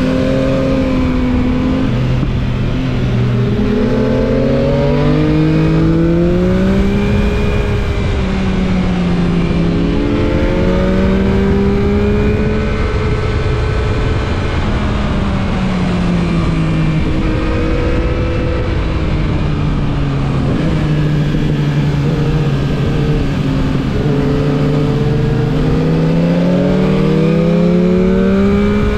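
Yamaha MT-09 SP's three-cylinder engine heard from the rider's seat, accelerating and easing off repeatedly. Its pitch climbs, drops and climbs again as the bike pulls through the gears and the revs fall between bends. A steady rush of wind and road noise runs underneath.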